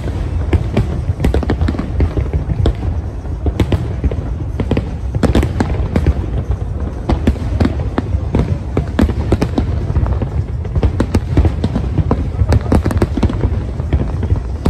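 Aerial fireworks bursting in rapid succession: a dense, unbroken run of bangs and crackles over a constant low rumble.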